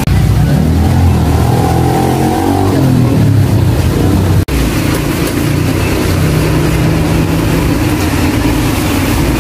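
Small motorcycle engine running: its pitch rises and falls over the first few seconds as it revs, then it runs steadily after a brief break about halfway through.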